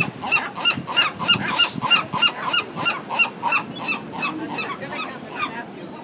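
A gull calling in a long, rhythmic run of loud honking notes, about three a second, which grow weaker and stop near the end.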